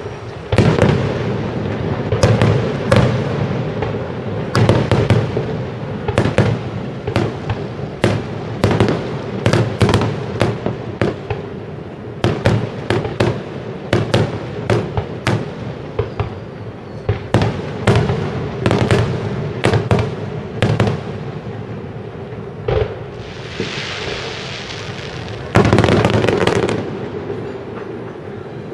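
Fireworks display: aerial shells bursting in a steady barrage, dozens of sharp booms in quick succession over a continuous low rumble. About 23 seconds in comes a hissing spell, then a louder burst near 26 seconds.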